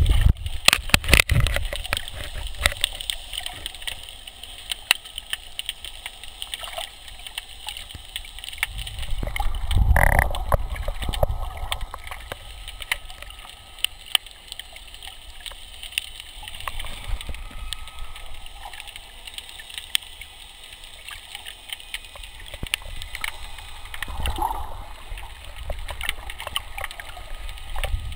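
Underwater sound picked up by a camera: irregular sharp clicks and crackles over a steady hiss, with a louder gurgling rush of water or bubbles about ten seconds in.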